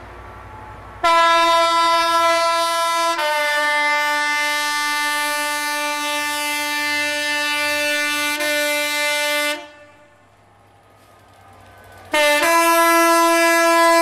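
Class 67 diesel locomotive's two-tone horn. A long blast starts on the high note, drops to the low note after about two seconds and holds it for about six more. After a pause of a couple of seconds, a second blast starts on the high note near the end.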